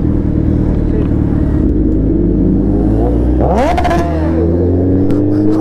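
Inline-four superbike engines running steadily in traffic, then a sharp throttle blip about three and a half seconds in that rises and falls in pitch, followed by a steady pull as the bike accelerates.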